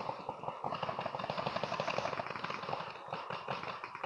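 Rapid, continuous popping of paintball markers firing, many shots a second.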